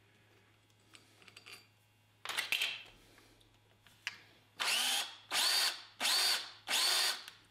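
A drill turning a countersink bit in the screw hole of a metal butt plate, run in short trigger pulls: one brief burst about two seconds in, then four in quick succession, each rising and falling in pitch. It is cutting the countersink a little at a time so the screw head will sit level.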